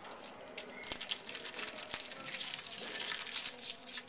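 Wrapper of a jumbo pack of baseball cards crinkling and tearing as it is pulled open, a dense run of crackles starting about half a second in.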